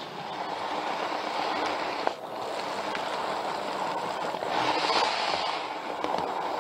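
N-gauge model train running along its track, a steady rushing of motor and wheels on the rails heard from a camera riding on the train, briefly dipping about two seconds in and growing brighter and hissier a little before the end.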